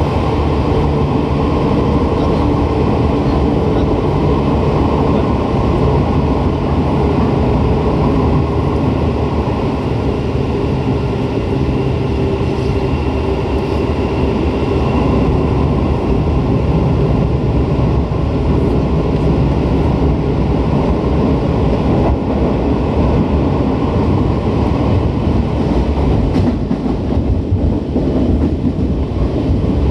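Tokyu 8500 series electric train running at speed: a steady, loud rumble of wheels and running gear, with a faint higher whine for a few seconds near the middle.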